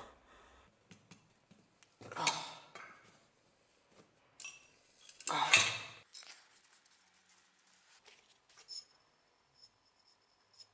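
Metal parts of an old gasoline blowtorch clinking and scraping as its fittings are worked loose and handled, with two louder scraping bursts about two and five seconds in, then light clicks.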